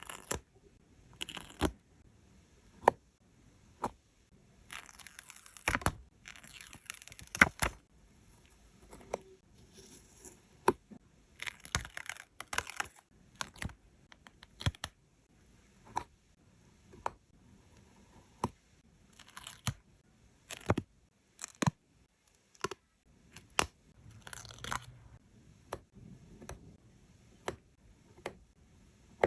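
Stickers and paper sheets being handled, peeled and pressed down: spells of rustling, crinkling and tearing a few seconds long, between many sharp clicks and taps.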